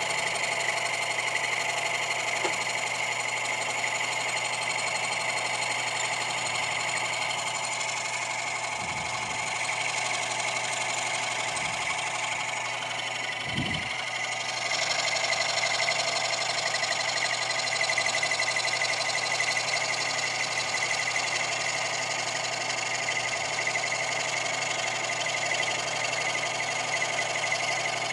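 Antique early-1930s Dunlop scroll saw running steadily, its blade stroking up and down, driven by a belt from a separate electric motor while it cuts a strip of wood. The sound grows a little louder about halfway through.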